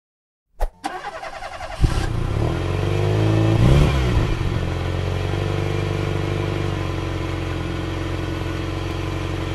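Bus engine starting after a sharp click about half a second in, revving up and back down in the middle, then running steadily as the bus pulls away.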